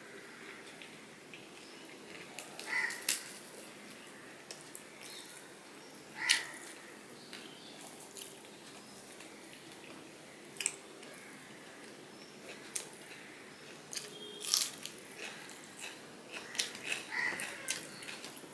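Eating by hand: fingers picking at fried hilsa fish and rice on a plate, with chewing and lip smacks making scattered short sharp clicks. A few brief animal calls sound in the background, about three seconds in, about six seconds in and near the end.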